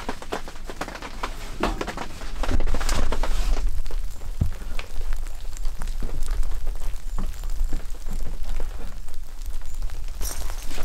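Wooden poles knocking and clattering as they are handled, with many sharp knocks over the first few seconds. Then an even outdoor patter of rain with scattered drips and a low rumble.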